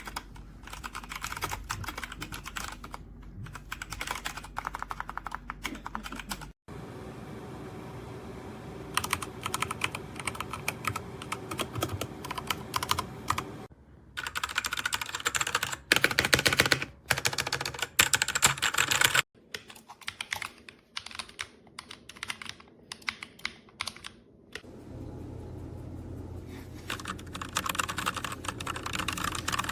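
Typing on a Redragon K617 Fizz 60% mechanical keyboard: rapid key clacks in bursts, with short pauses between runs.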